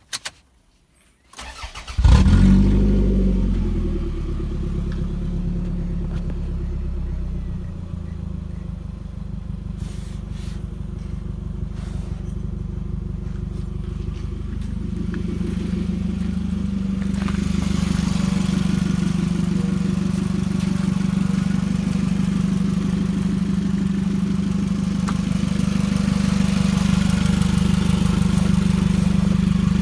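Toyota Estima ACR30's 2AZ-FE 2.4-litre four-cylinder petrol engine being started: a brief crank, then it catches about two seconds in and settles into a steady idle. The idle grows a little louder over the second half.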